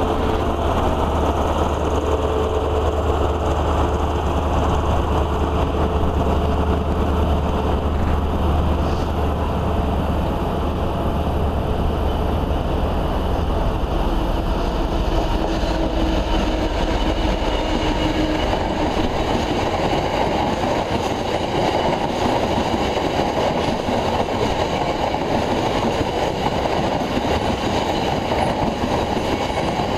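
Freightliner Class 66 diesel locomotive running with a steady low engine drone as it approaches and passes. After about eighteen seconds the drone fades and the steady rolling noise of a long rake of coal hopper wagons takes over.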